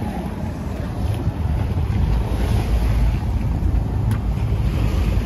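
Wind buffeting the microphone on the deck of a sailboat under sail, a steady low rumble, with the rush of the sea alongside. A single light click about four seconds in.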